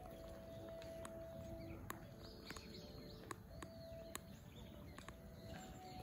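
Faint outdoor ambience with low rumble, a few faint bird chirps, and scattered light clicks.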